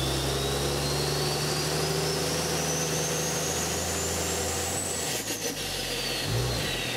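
Engine running steadily under a thin, high whistle that climbs in pitch for about five seconds, then glides back down, with a low thump near the end.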